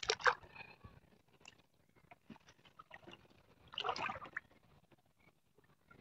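Water splashing and dripping as a wet fishing net is hauled by hand out of a pond, with a louder splash at the start and another about four seconds in, and small drips between.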